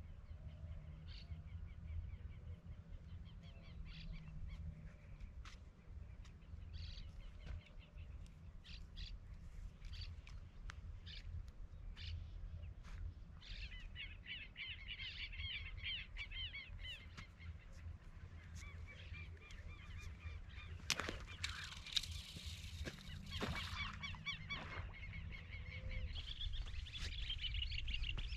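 Birds calling, with many short chirping calls that grow busier in the second half, over a low steady rumble and a few faint clicks.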